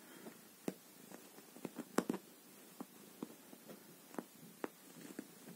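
A domestic cat purring softly while being stroked, with irregular small clicks and rustles over the purr.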